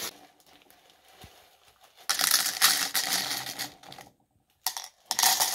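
Dried whole cloves poured from a plastic bag into a plastic cup: a rapid clatter of small hard pieces with crinkling of the bag, starting after a quiet first two seconds and briefly stopping near the end.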